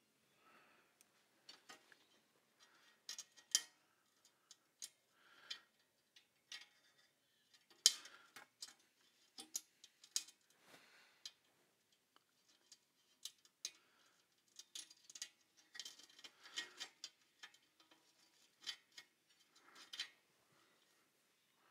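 Faint, irregular metallic clicks and small scrapes of a long-shafted screwdriver turning screws into a metal amplifier chassis panel, with light handling knocks and a sharper click about eight seconds in.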